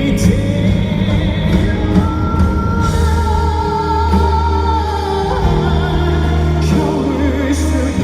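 A song with a singing voice over instrumental accompaniment and steady bass, with a long held note in the middle.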